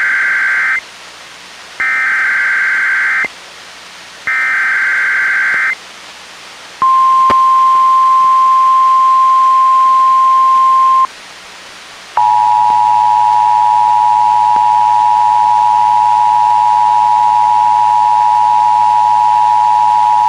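NOAA Weather Radio sending an Emergency Alert System required monthly test, heard straight from a Reecom R-1630 weather radio. First come the buzzy SAME digital header bursts: the end of one and two more, about a second and a half each. Then a steady single-tone weather radio warning alarm tone for about four seconds, and after a short gap the two-tone EAS attention signal, held for about eight seconds.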